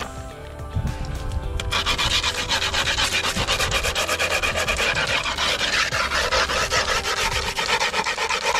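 A metal tool scraped rapidly back and forth along the edge of new skateboard griptape, scoring the grip against the deck's edge so it can be trimmed. The gritty rasping strokes begin about two seconds in, over faint background music.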